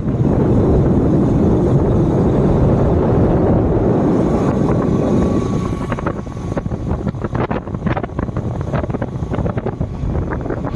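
Wind buffeting the microphone as a loud, deep rumble. It becomes gustier and more uneven after about six seconds.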